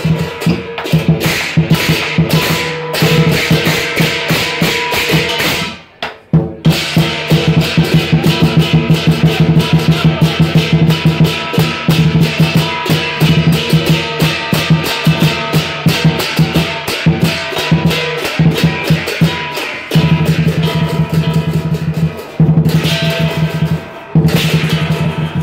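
Southern lion dance percussion: the big lion drum beaten fast with gong and cymbals ringing along, breaking off briefly about six seconds in and again twice near the end.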